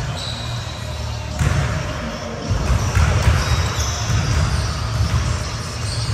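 Basketballs bouncing on a hardwood gym floor, with the thuds echoing around the hall. There are a few short, high squeaks.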